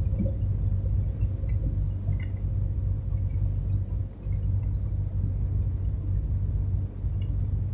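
Steady low rumble of a car driving on the road, with a faint high whine and a few light clicks and rattles.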